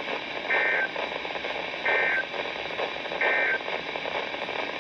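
Three short bursts of Emergency Alert System digital data tones, spaced a little over a second apart, over steady radio static. Their shortness fits the end-of-message signal that closes an alert.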